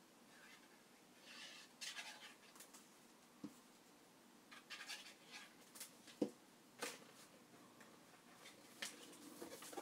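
Faint handling of a glossy card-stock file folder: paper rustling and scraping as a pocket edge is glued and the flap folded over. A few soft taps, with one sharper knock about six seconds in.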